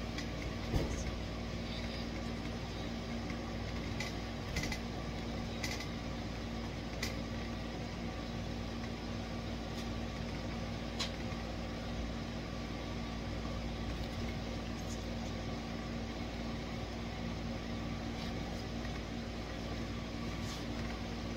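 Steady mechanical hum with a constant low tone, and a few faint clicks.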